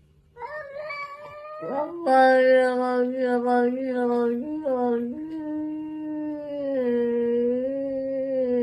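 A cat yowling: a short higher cry, then one long drawn-out low call that wavers in pitch and is held for several seconds.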